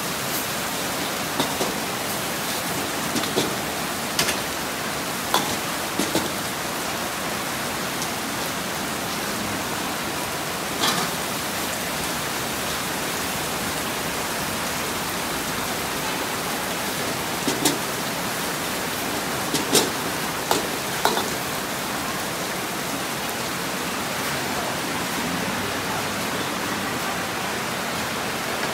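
Steady hiss of heavy rain and stir-frying in a wok, broken by scattered sharp metal clinks of a spatula and ladle striking the wok.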